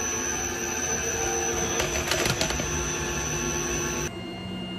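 Tormach 15L Slant-Pro CNC lathe running a turning operation under flood coolant: a steady high spindle whine over motor hum, with a few clicks of cutting about two seconds in. About four seconds in the sound drops to a quieter, lower hum.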